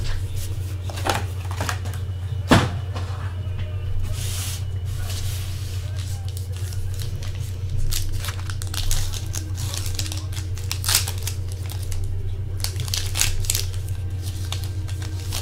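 Trading-card pack wrappers crinkling and being torn open by hand: scattered sharp crackles and rustles, the sharpest about two and a half seconds in, over a steady low hum.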